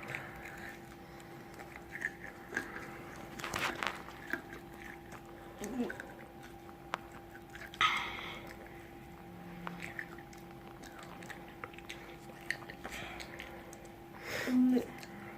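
A person biting into and chewing crispy fried food, with scattered crunches and wet chewing sounds at irregular intervals. A faint steady electrical hum runs underneath.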